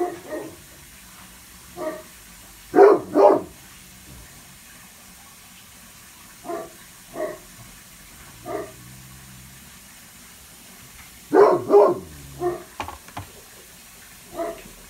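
Great Pyrenees barking on watch at a window: deep, short barks, some single and some in quick pairs, at irregular intervals, the loudest about 3 and 11 seconds in, with fainter ones in between.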